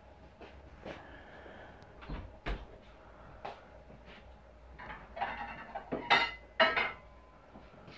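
Irregular knocks and clatter of things being handled, a few light bumps and then a louder cluster of knocks and clinks about six to seven seconds in.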